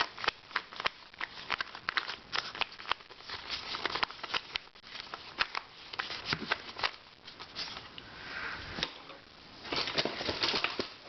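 Plastic puzzles being handled, making irregular clicks, taps and light knocks as they are picked up, turned over and set down.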